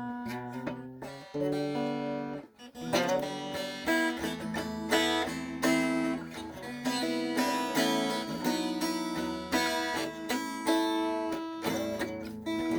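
Solo guitar music: plucked notes and chords that ring on and overlap, in an unhurried melody.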